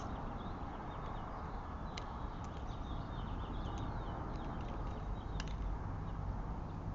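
Small birds chirping in short, high, quick notes, some falling in pitch, over a steady low background rumble.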